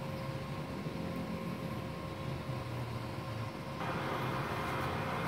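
Cooling fan of a 450-watt MIG welding machine running steadily with a faint whine. About four seconds in, a louder hiss joins.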